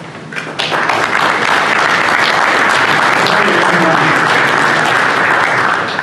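Audience applause from a roomful of people: it swells about half a second in, holds steady, and dies away near the end.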